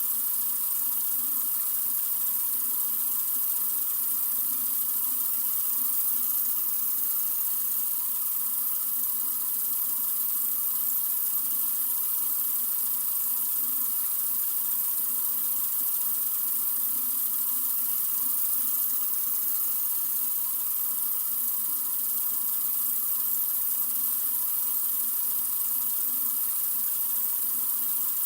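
Sink faucet running in a steady stream, an even hiss of water with no change.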